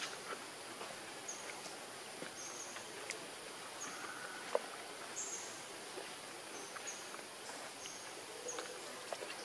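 Forest ambience: a steady hiss with short, high-pitched chirps repeating every second or so, and a single sharp click about four and a half seconds in.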